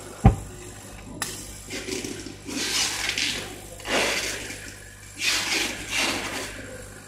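Laser cutting machine cutting acrylic sheet: a hissing rush that swells and fades about four times, after a single sharp thump near the start.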